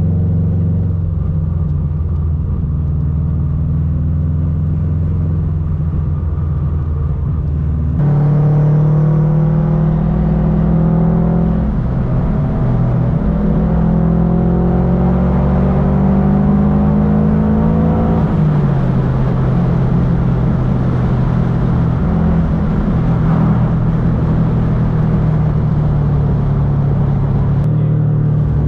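Turbocharged Subaru EJ205 flat-four running at a steady cruise. About eight seconds in it gets suddenly louder and the engine pitch climbs steadily for about ten seconds under acceleration, then drops back at a gear change and settles into steady cruising again.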